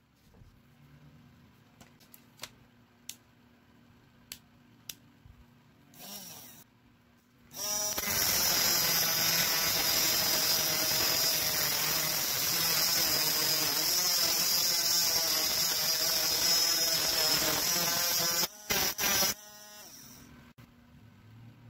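A small electric grinder's disc grinds the steel worm-gear shaft of a car power-window motor. The grinding runs for about ten seconds, with its pitch wavering, then cuts off, followed by two short blips. A few light handling clicks come before it.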